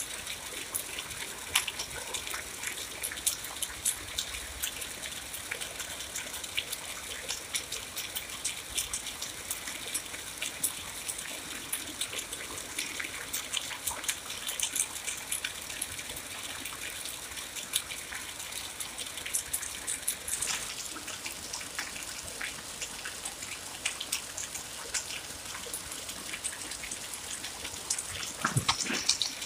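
Steady rain falling, with many distinct drops ticking and spattering close by over a constant hiss. A brief louder rush comes near the end.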